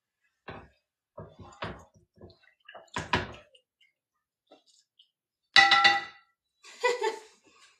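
Kitchenware being handled: a few light knocks and taps, then a bright ringing clink a little past halfway, like a glass jar or metal pan being set down or knocked, and a softer clink shortly after.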